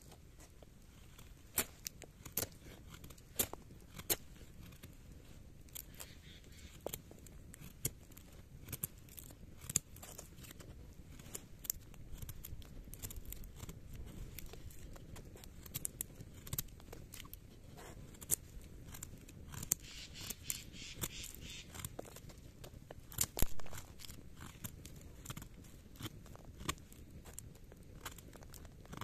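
Puukko knife blade shaving thin curls down a dry wooden stick to make a feather stick: a run of short, irregular cutting strokes with sharp clicks and scrapes.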